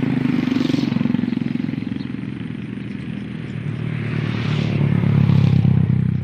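Small petrol engine running steadily, growing louder twice: about half a second in, and again, louder still, around five seconds in.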